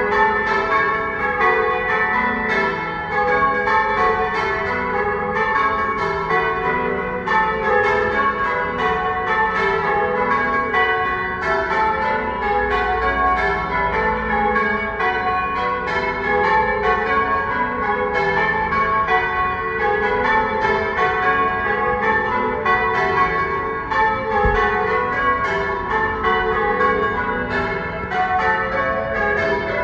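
A ring of church tower bells being rung in change ringing: a steady, even stream of overlapping bell strikes, several a second, each note ringing on under the next.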